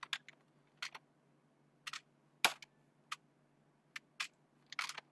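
Scattered, irregular computer keyboard and mouse clicks, about ten in all, the loudest about two and a half seconds in, over a faint steady low hum.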